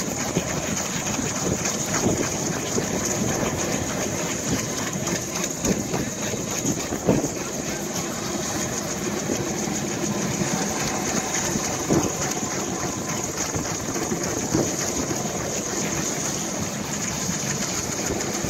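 Rescue helicopter running on the ground: a steady high turbine whine over a broad, even rushing noise, with a few light knocks.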